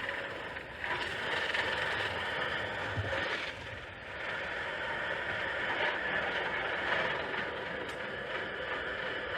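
Air conditioner's outdoor condenser unit running: a steady machine whir with a constant hum, dipping briefly twice.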